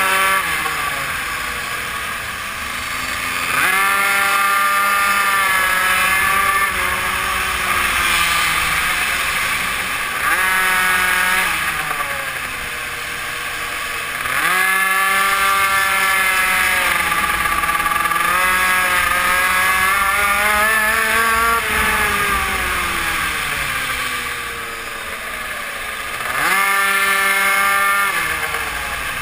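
GRC RR BZM super mini moto's small engine revving high on the straights and falling away off the throttle into the corners, four times over, with wind rush on the onboard camera.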